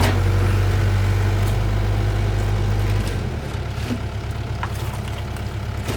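Engine idling steadily; about three seconds in its low note shifts and it gets slightly quieter. A few faint clicks sound over it.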